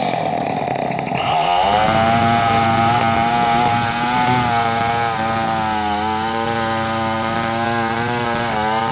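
Two-stroke chainsaw engine running at high revs. Its pitch falls off around the start, then it is throttled back up about a second and a half in and held near full speed, the pitch sagging and recovering slightly.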